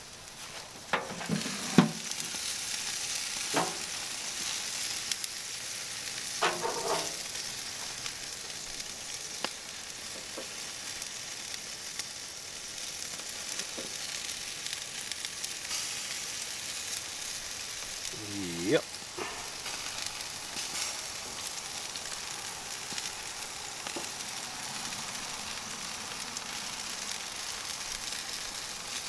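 Chicken drumsticks sizzling steadily on the grate of a charcoal grill, near the end of cooking. A few brief clicks and squeaks sound over the sizzle.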